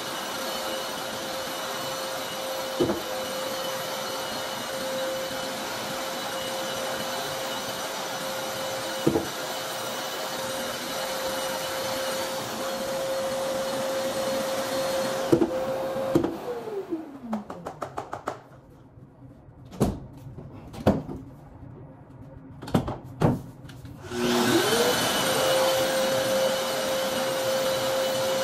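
Long-reach drywall sander and its Festool dust extractor running steadily with a whine, sanding a ceiling, with an occasional knock. About two-thirds of the way through they switch off and the whine falls in pitch as the motors wind down. A few knocks sound in the lull, then both start again and run back up to speed.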